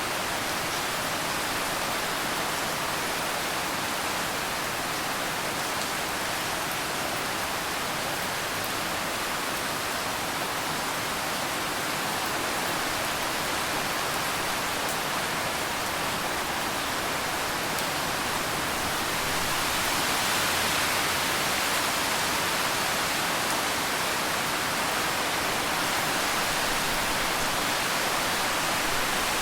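Steady rainfall, a dense even hiss of many drops, growing a little louder about two-thirds of the way through.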